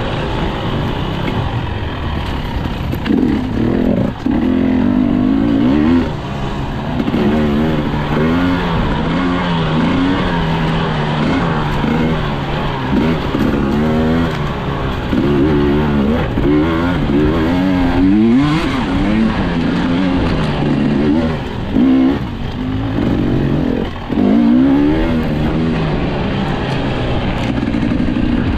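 Dirt bike engine being ridden, revving up and down over and over. Its pitch rises and falls every second or so, with a few brief dips in loudness.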